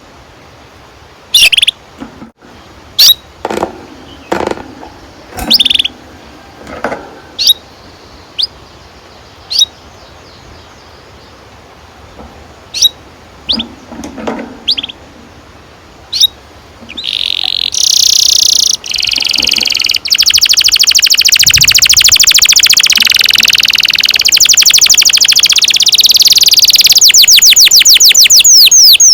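Domestic canary singing: short separate chirps and calls for the first two-thirds, then a loud, long, very fast roll of repeated notes, the extended rolling song canary keepers call "ngerol panjang".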